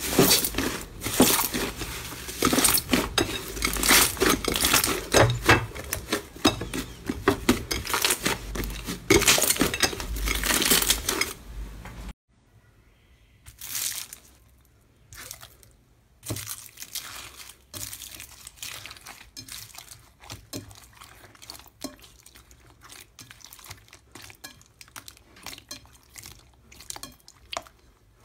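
Green fluffy slime being squeezed and kneaded by hand in a glass bowl: dense crackling and popping for about the first twelve seconds. It then cuts off sharply, and quieter, sparser pops and clicks follow.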